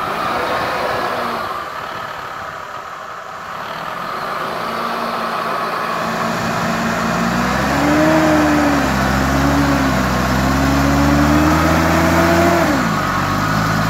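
Older Mercedes-Benz G-Class engine pulling under load as the truck crawls a front wheel up a concrete wall. The revs climb from about halfway through, hold high, then drop back sharply near the end.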